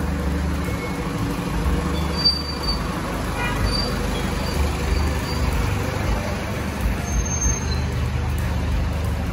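City street traffic noise, with a steady low rumble from a running vehicle engine.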